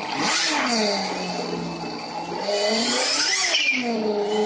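Engine sound simulator on an RC drift car, playing a synthesized car engine through its small onboard speaker. The engine note revs and falls back to a steady idle, then revs again about three seconds in and settles back to idle.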